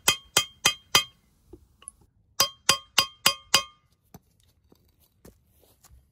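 Hammer blows on a steel chisel held against the seized wheel-bearing snap ring in a rusty Honda Civic front steering knuckle, about three a second, each with a short metallic ring: four blows, a pause, then five more. The hammering is meant to break the heavily seized snap ring loose. A few faint clicks follow as the tools are moved.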